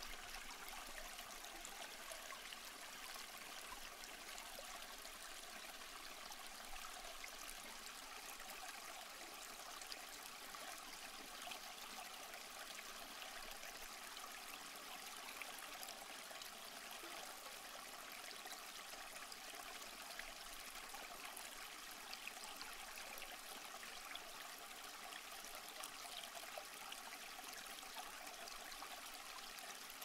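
Water trickling steadily and faintly through a small tabletop fountain of stacked plastic pots into a wash basin.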